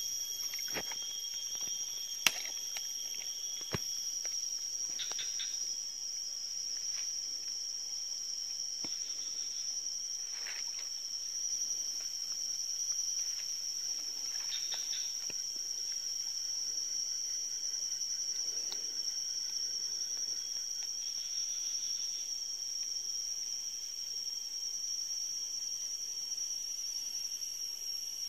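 Steady, high-pitched chirring of forest insects. Two sharp clicks come about two and four seconds in.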